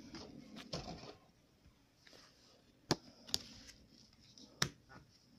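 Tarot cards being handled and slid from the front of the deck: a soft rustle, then a few sharp card clicks, the two loudest about three and four and a half seconds in.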